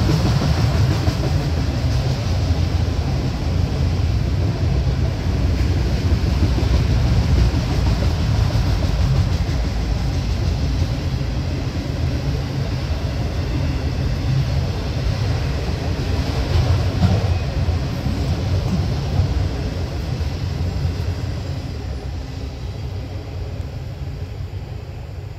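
Autorack freight cars rolling past with a steady low rumble of steel wheels on rail. The rumble fades over the last few seconds as the end of the train goes by.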